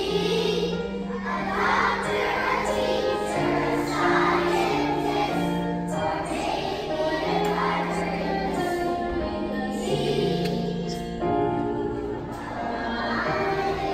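A large choir of young children singing a song together over a musical accompaniment, the notes changing about once a second.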